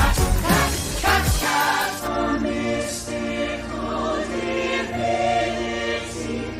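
Film soundtrack music: a rhythmic passage with heavy beats that cuts, about two seconds in, to a choir singing held chords.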